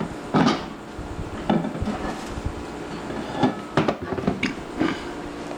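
Dishes and utensils clattering: about half a dozen separate knocks and clinks at uneven intervals.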